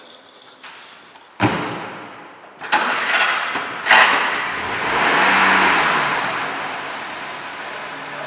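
Vintage Mercedes-Benz saloon's engine starting, with sharp knocks a couple of times in the first few seconds, then revving up and down once and settling to a steady idle.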